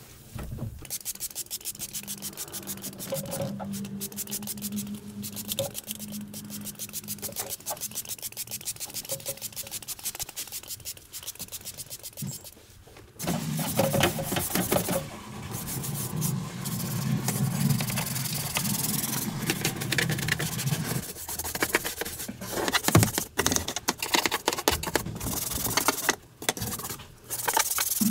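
A brush scrubbing the wet rubber floor mat and floor of a truck cab in rapid, even strokes. About halfway through, the scrubbing gets louder and a steady low hum joins in.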